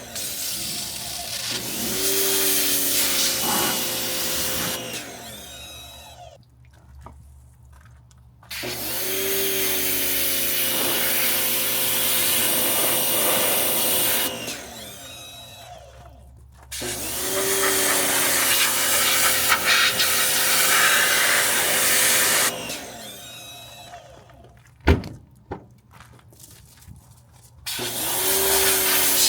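Pressure washer spraying in bursts of several seconds; each time the trigger is let go the spray stops and the machine winds down, then starts up again with a short pitch glide. A single sharp knock sounds near the end.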